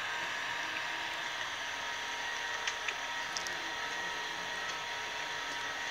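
Steady flight-deck noise of an Airbus A380: an even hiss with a few constant hum tones. A few faint clicks come about halfway through.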